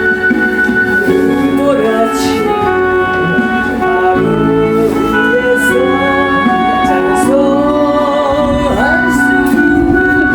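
Instrumental music of a gospel hymn accompaniment: a wavering melody line over held chords.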